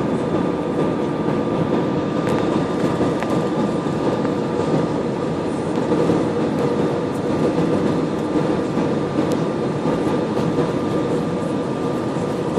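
Steady cabin noise inside an Airbus A320-family jet airliner on final approach: a rumble of engines and rushing air with a steady whine running through it.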